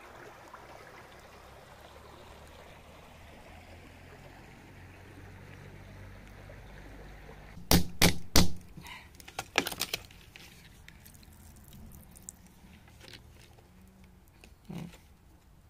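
Shallow stream water running steadily, then three sharp knocks of a metal chisel on clay and stone about eight seconds in, followed by smaller clicks and scrapes.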